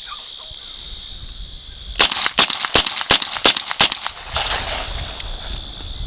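A Smith & Wesson .357 Magnum revolver being worked through a speed reload: a quick run of about eight sharp clicks and knocks over two seconds, then a short rattle. Crickets chirp steadily throughout.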